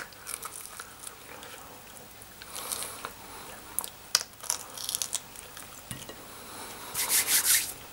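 Eating a marinated chicken wing: biting and pulling meat off the bone, then chewing, with scattered small wet mouth clicks. Near the end there is a short, louder breathy hiss.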